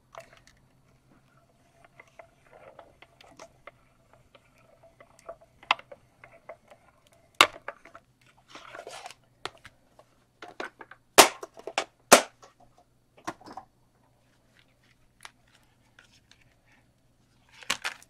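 Hand-cranked Mini Stampin' Cut & Emboss machine rolling a plate-and-3D-embossing-folder sandwich through its rollers, with faint crackling and creaking as the card stock is pressed, followed by a few sharp clacks as the plates come free and are handled.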